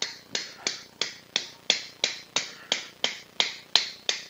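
Mallet tapping the inserter of a suture anchor, driving the anchor down into the bone of the shoulder. The taps are sharp and evenly spaced, about three a second.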